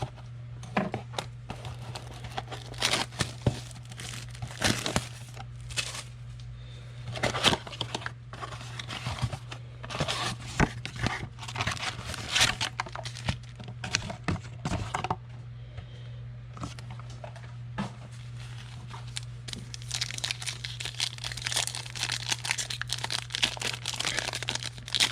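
Plastic trading-card pack wrappers (2019 Panini Prism football packs) crinkling and tearing as the packs are opened and handled, with irregular crackles throughout. A steady low hum sits underneath.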